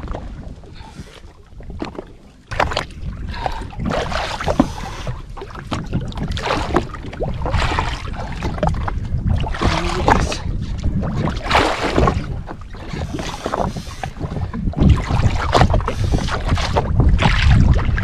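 Wind buffeting the microphone over a steady low rumble, with water slapping against a jet ski's hull in irregular surges.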